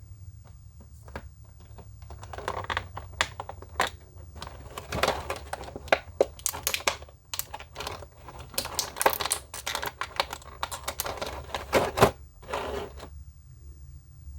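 Hands handling an action figure's packaging and plastic parts: a busy run of clicks, taps and crinkling plastic that stops near the end, over a steady low hum.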